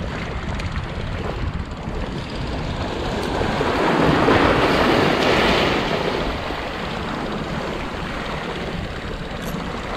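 Sea waves washing against shoreline rocks, with one wave surging and splashing loudest about four to six seconds in. Wind rumbles on the microphone underneath.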